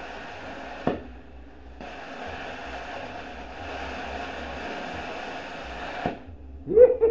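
Cut 40 plasma cutter arc cutting through a steel bolt: a steady hiss of arc and air blast, with a click about a second in, after which the hiss grows stronger. It stops abruptly about six seconds in. The cutter is running on low air pressure fed from a spare tyre.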